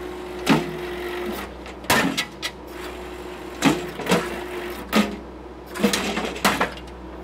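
Skid-steer-mounted Blue Diamond hydraulic post driver hammering a wooden post, heard from inside the cab. It lands a series of heavy strikes, unevenly spaced about a second apart, with a steady tone and a low machine hum between blows.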